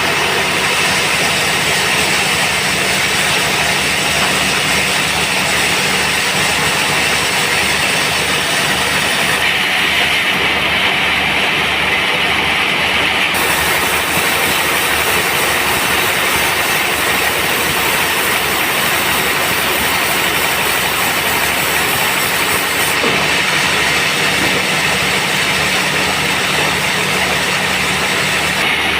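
Sawmill band saw running steadily as it saws teak, a loud constant mechanical drone with a regular low pulse underneath. The high hiss changes abruptly about ten seconds in, again a few seconds later, and near the end.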